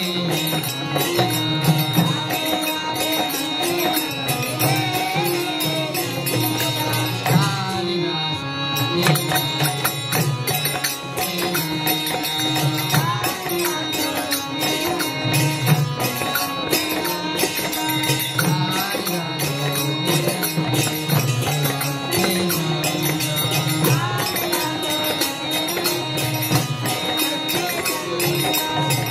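Mridanga drums playing a fast, dense rhythm with a melody over them, with a brief let-up in the strokes about eight seconds in.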